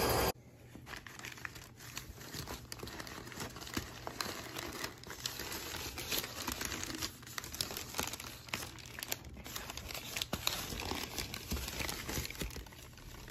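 Crumpled brown kraft packing paper rustling and crinkling in quick, irregular crackles as hands dig through a cardboard shipping box; it thins out near the end. A brief loud noise cuts off just at the start.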